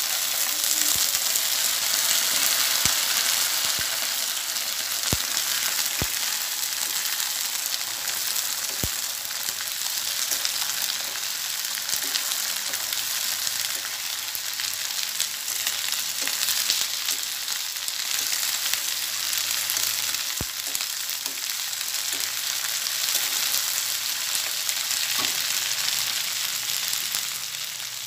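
Cut string beans and okra frying in hot oil in a steel wok: a steady sizzling hiss, a little louder in the first few seconds as the beans go in. A few sharp clicks come from the spatula knocking the pan as the vegetables are stirred.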